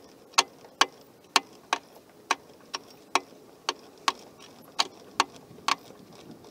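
Sharp, regular clicks, about two a second, as a truck's factory bottle jack is cranked round with its long handle and extension, pressing down on a tire to break the bead off the rim.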